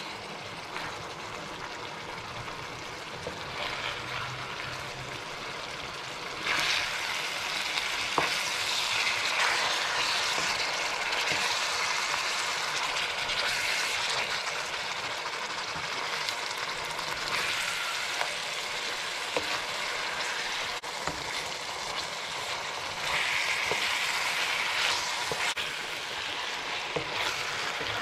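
Marinated chicken pieces and onion sizzling in hot oil in a wok, with a wooden spoon stirring and scraping the pan. The sizzle grows louder about six seconds in.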